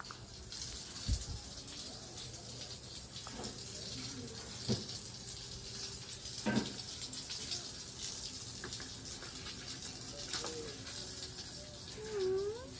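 Water running and splashing steadily. A few soft knocks, and near the end a short squeak that dips and rises in pitch.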